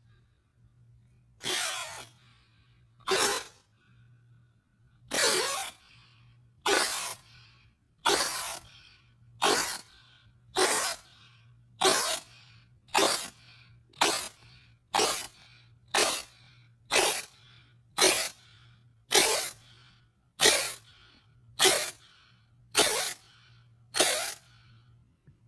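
A cat sneezing over and over, about twenty short sharp sneezes. They come about a second and a half apart at first, then roughly once a second. A faint steady low hum runs underneath.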